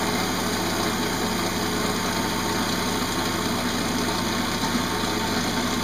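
Wood lathe running steadily while a bowl gouge cuts inside a green pear-wood bowl: the steady hum of the lathe with the even hiss of the gouge taking shavings from the wet wood.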